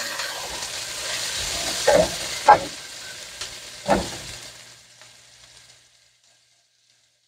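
Chopped garlic, chives and peppers sizzling gently in oil in a metal pot over low heat, while a metal spoon stirs them and knocks against the pot three times. The sizzle fades out about five seconds in.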